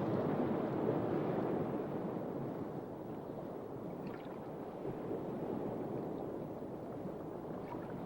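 Steady rushing of water, an even watery wash without any tone, a little louder at the start, with a few faint ticks about four seconds in.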